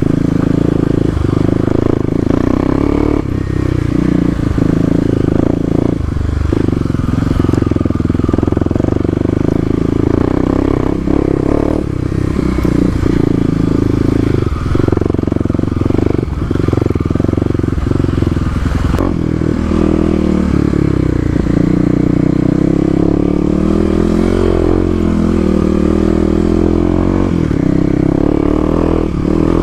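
Kawasaki KLX250's single-cylinder four-stroke engine, fitted with an FMF Q4 exhaust, pulling under load while riding off-road. The pitch holds fairly steady for the first two-thirds, then rises and falls as the throttle is worked, with occasional knocks and clatter from the bike over rough ground.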